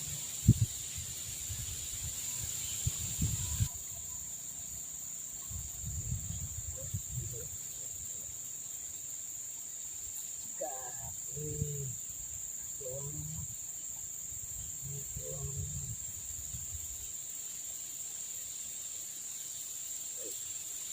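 Steady high-pitched insect drone over the surroundings, with low rumbles of handling and a sharp click about half a second in; a few faint short voices or calls come through midway.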